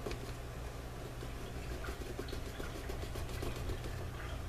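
Faint, irregular scratching of sandpaper rubbed on a painted plastic model part, roughing the paint back down so glue can grip, over a steady low hum.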